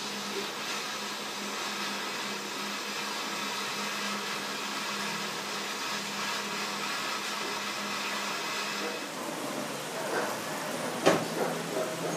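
Small handheld butane torch hissing steadily, then shut off about nine seconds in; a sharp knock follows near the end.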